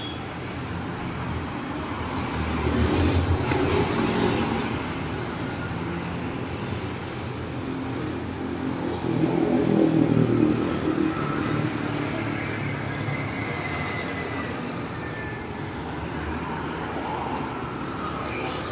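City street traffic: cars passing on the road, with two louder pass-bys about three seconds and ten seconds in.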